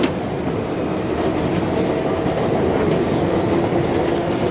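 R142A subway car running at speed, heard from inside the car: a steady rumble of wheels on rail with a low drone and occasional clicks over the rail joints.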